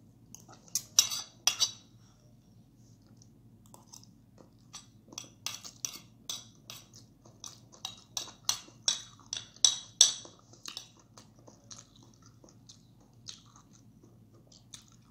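Cutlery clicking and scraping against dishware in a run of sharp, irregular clicks, busiest from about five to ten seconds in.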